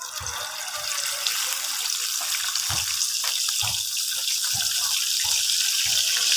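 Catfish frying in hot oil in a pan: a steady crackling sizzle that grows louder over the few seconds after the fish goes in.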